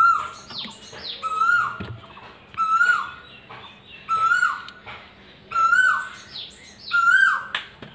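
A bird repeating a short call about once a second, each note sliding down in pitch at its end.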